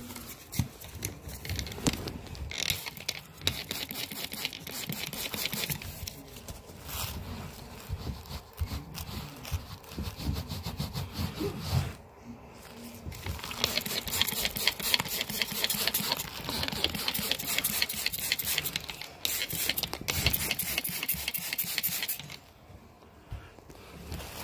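Carpet-cleaning machine working over a dirty carpet: a dense crackling, scraping noise that dips briefly about halfway through and again near the end.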